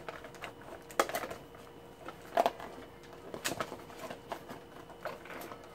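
Cardboard toy box and plastic packaging being handled and pried at: scattered clicks, crinkles and scrapes, with a few sharper ones about a second in, near the middle and near the end.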